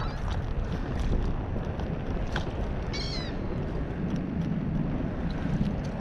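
Steady wind rumble on the microphone, with one bird's call about three seconds in: a short cry that falls in pitch.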